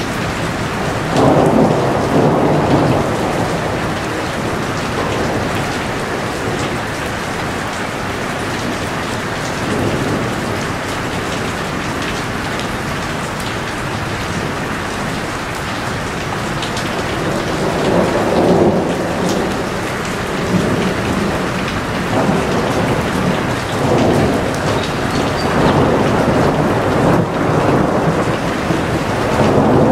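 Heavy rain falling steadily in a dense hiss, with louder surges about a second in, again about two-thirds of the way through, and near the end.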